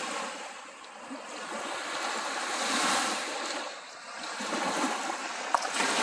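Small Lake Superior waves washing in over a sandy beach, swelling and fading as each one breaks about every two to three seconds. A brief click sounds near the end.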